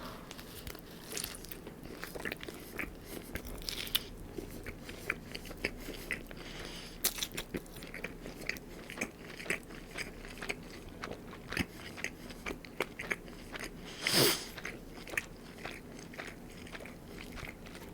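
Close-miked biting and chewing of a crispy chicken wrap: irregular crunching clicks throughout, with one louder, longer crunch about fourteen seconds in.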